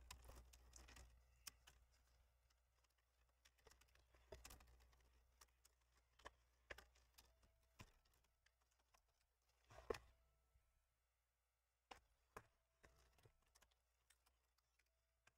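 Near silence broken by faint scattered clicks and taps of a plastic laptop screen bezel being handled and pressed against the display frame, the loudest tap about ten seconds in.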